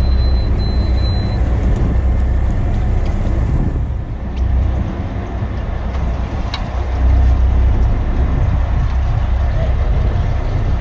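Low rumbling noise of a small fishing boat at sea, rising and falling in strength, with a thin high tone in the first second or so and a couple of faint clicks.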